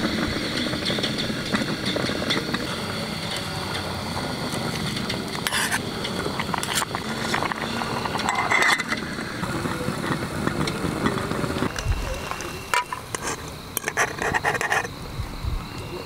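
Portable gas camp stove burner running under a lidded pot of boiling spaghetti, a steady rushing sound that drops away about three-quarters of the way through. Near the end come a few sharp clinks and knocks of the metal pot and lid being handled.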